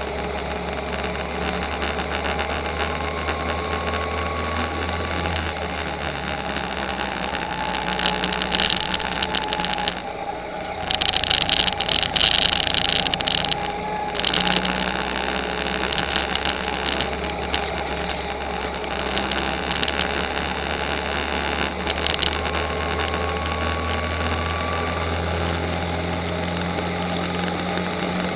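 Rental go-kart's small engine running at speed on a kart track, heard from a camera on the kart's nose, its note rising and falling a little through the corners. Several short bursts of hiss come in the middle stretch.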